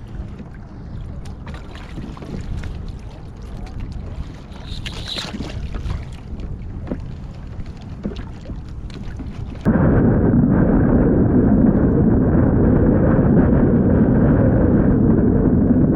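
Wind buffeting the microphone on a kayak at sea, a low rumble with scattered small clicks and taps. About ten seconds in it cuts abruptly to much louder, muffled wind noise.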